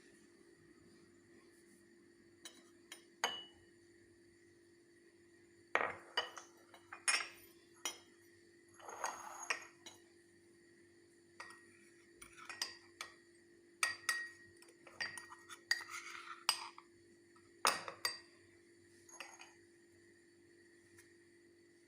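Cutlery and dishes clinking in irregular knocks and clinks, many with a brief high ring like metal or a spoon on glass, with a couple of short scrapes between. A faint steady hum runs underneath.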